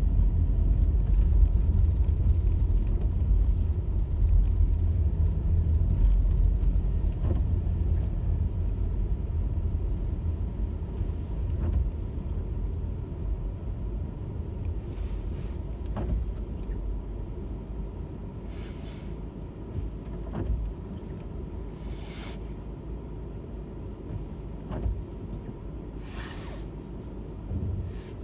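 Car driving, a steady low road rumble that gradually grows quieter, with a few short hissing swishes in the second half.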